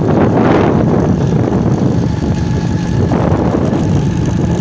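Small motorcycle engine running steadily at road speed, with wind rushing over the microphone.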